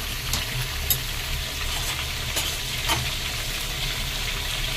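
Potato pieces frying in mustard oil in an aluminium kadai over a low flame: a steady sizzle with a few sharp crackles from the oil.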